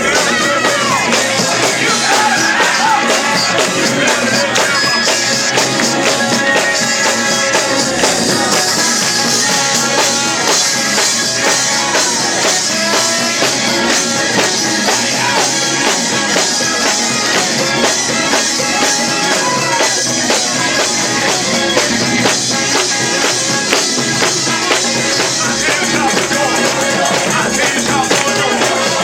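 Live gospel band playing an up-tempo praise song, with tambourine and singing voices over the band.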